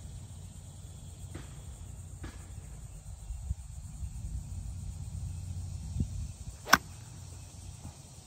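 Golf club striking the ball on a fairway shot: a single sharp click near the end, over a steady low rumble.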